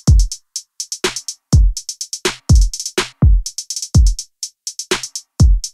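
Background music: an electronic drum-machine beat of deep kick drums that drop in pitch, with quick hi-hat ticks between them.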